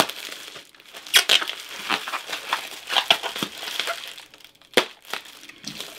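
Packing material crinkling and rustling in irregular bursts, with a few sharper snaps, as a hardcover book is unwrapped from its shipping packaging.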